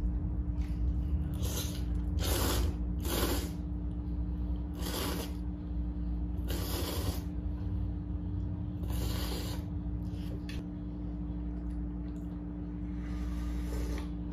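A person slurping noodles from a bowl of noodle soup in a series of short sucking slurps, then a softer, longer slurp near the end as broth is drunk straight from the bowl.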